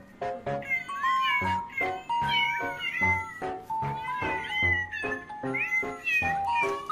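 A tabby cat meowing over and over, short calls that bend up and down in pitch, over background music with a stepping melody.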